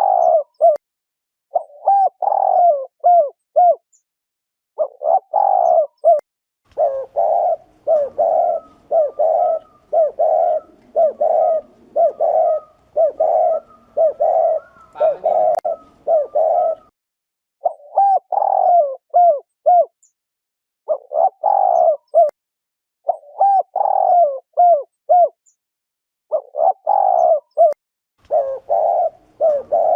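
Spotted dove giving its repeated cooing 'gù' calls: short low coo phrases, each about a second long, following one another with brief pauses.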